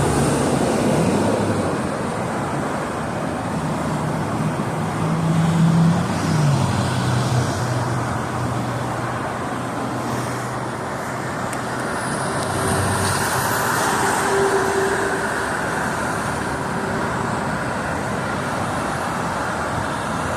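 Steady freeway traffic: the continuous roar of passing vehicles. About six seconds in, one vehicle's engine note drops in pitch as it goes by.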